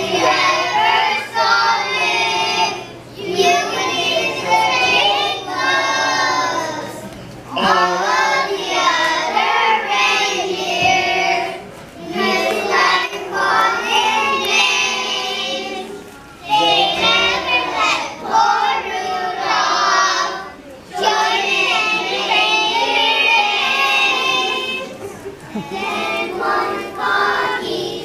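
Children's choir singing a holiday song, in phrases with short breaks between them.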